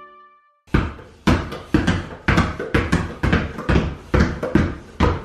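Two children dribbling rubber balls, a small basketball and a playground ball, on a hard tile floor. Uneven thuds about two to three a second start about a second in as the two balls bounce out of step.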